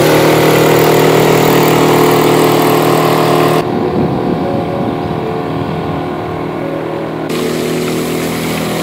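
Suzuki 6 hp outboard motor running steadily at speed, pushing a loaded inflatable catamaran. About a third of the way in the sound turns dull and rumbling for a few seconds, then the steady engine tone returns.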